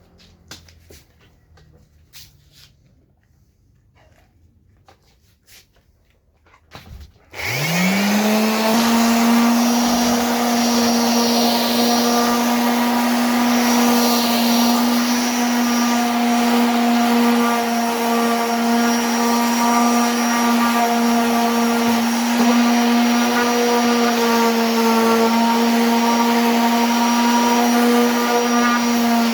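A few faint clicks, then about seven seconds in an electric motor switches on, spins up quickly and runs at a steady, loud hum.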